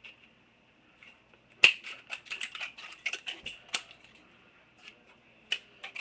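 Thin beer-can aluminium being cut to a small 1 by 2 inch strip: a loud snip about one and a half seconds in, then a quick run of irregular sharp snips and clicks for about two seconds, and two more clicks near the end.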